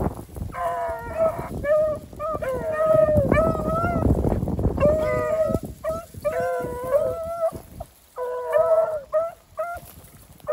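Two beagle rabbit hounds baying, a steady run of short pitched bawls one after another, sometimes two voices at once; hounds giving voice like this are typically on a rabbit's trail. Wind rumbles on the microphone through the first half.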